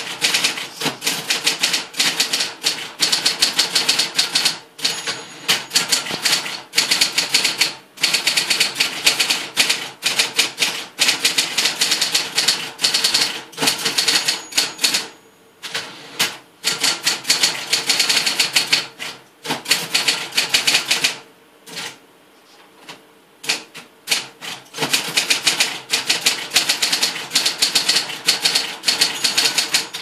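Olympia Reporter electric typewriter being typed on: a loud racket of rapid key strikes in runs, with a steady hum underneath. The typing pauses briefly about halfway through and again for about three seconds past the two-thirds mark.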